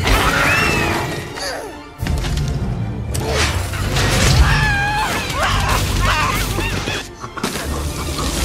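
Cartoon soundtrack: music with crash and impact sound effects, and a cat screeching near the start.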